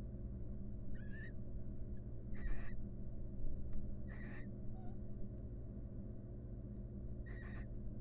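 A mated pair of barn owls giving four short, rasping calls, the last after a longer pause, over a steady low hum.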